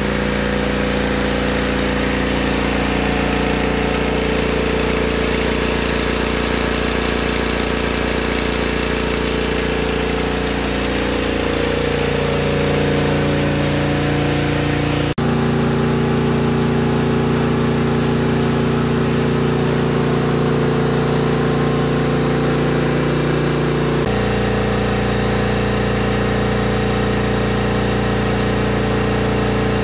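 Tanabe H-74 reciprocating marine air compressor running steadily under test, a loud, even mechanical hum. Its tone shifts abruptly about halfway through and again about two-thirds of the way through.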